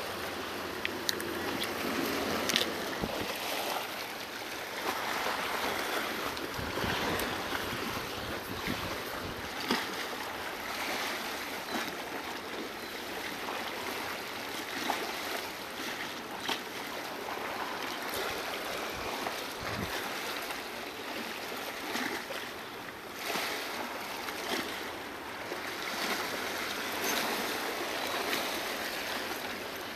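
Small waves washing and splashing against a rocky sandstone shoreline, with a few light knocks now and then.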